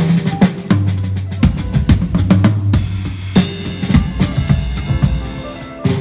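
Drummer playing a fast groove with fills on a Pearl Reference Pure kit (18-inch bass drum, 8- and 14-inch toms, 14-inch snare): dense snare, tom and bass drum strokes with the low drums ringing, and cymbals washing over the hits from about halfway in.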